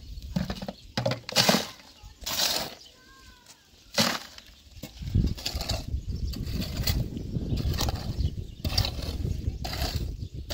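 Short scraping strokes as a cement mix is worked by hand in a plastic bucket. A steady low rumble runs through the second half.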